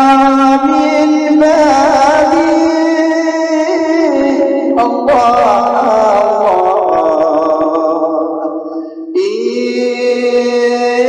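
Unaccompanied voices singing an Islamic devotional song in praise of the Prophet Muhammad, with long, ornamented held notes and a short break about nine seconds in.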